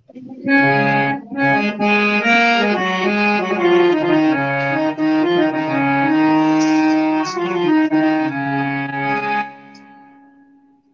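Harmonium playing the opening melody of a Bhojpuri matkor wedding folk song: a tune of steady reedy notes over a held lower note. The melody stops about nine and a half seconds in, leaving one held note fading away.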